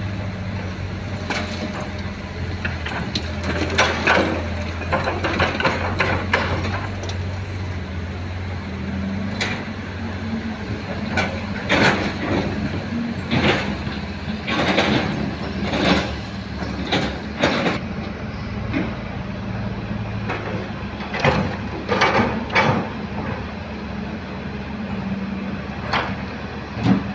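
Heavy diesel machinery engine running steadily, with a dozen or so short clanks and scrapes scattered throughout.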